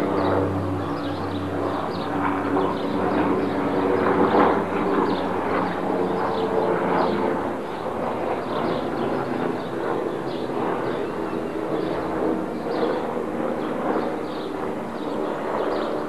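A steady engine drone with a low hum and evenly spaced tones, fading over the first half, heard from a distance. Short high chirps recur throughout.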